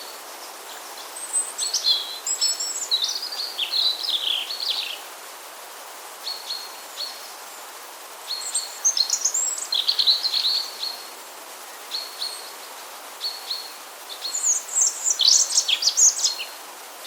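European robin singing: three high, warbling phrases of a few seconds each, the first about a second in, the second near the middle and the third near the end. Short repeated high notes come between them, over a steady background hiss.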